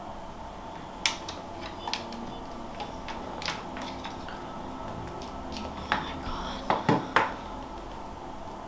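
Handling noise as over-ear headphones are taken off and set down on a desk: scattered light clicks and knocks over quiet room tone, with a cluster of louder knocks about seven seconds in.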